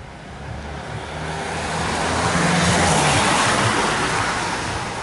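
A road vehicle driving past: engine hum and tyre noise swell to a peak about three seconds in, then fade away.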